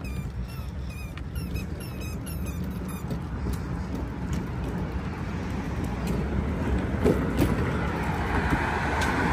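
Birds chirping in quick short notes for the first few seconds over a steady low rumble of road traffic; from about halfway through, a car approaches on the road and its tyre noise grows louder, loudest near the end.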